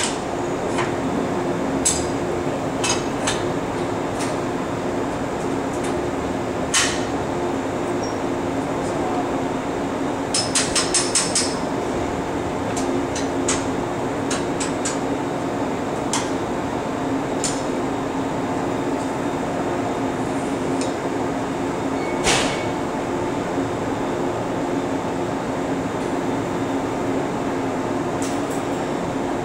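Steady electrical hum of two stationary electric train sets, broken by scattered metallic clicks and clanks from the coupling work between their car ends. A quick run of about five clicks comes about ten seconds in, and single louder knocks come about seven and twenty-two seconds in.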